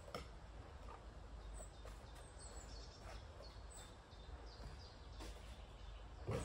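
Quiet outdoor ambience: small birds give short high chirps over a steady low rumble, with a sharp knock at the start and a louder one near the end.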